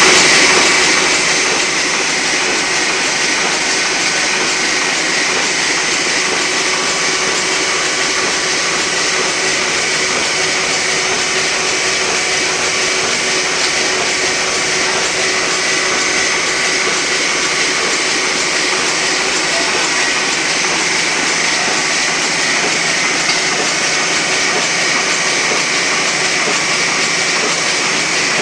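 Heidelberg MOZP sheetfed offset printing press running steadily at speed, a continuous even mechanical noise.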